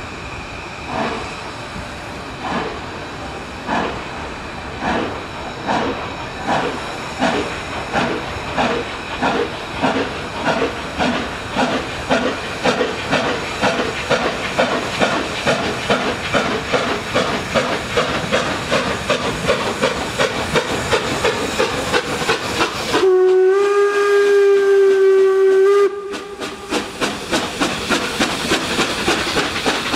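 ČSD class 475.1 steam locomotive starting a passenger train: its exhaust chuffs come faster and faster as it gathers speed, over hissing steam. About three-quarters of the way through, its steam whistle sounds one long steady note for about three seconds, then the chuffing resumes.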